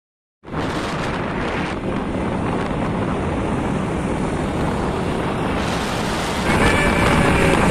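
Wind rushing over the microphone of a camera carried on a moving motorbike, with the motorbike's engine running underneath. It starts abruptly about half a second in and grows louder about six and a half seconds in.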